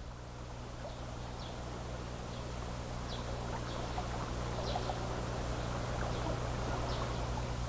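Steady low hum under a hiss, slowly getting a little louder, with a few faint high ticks scattered through it.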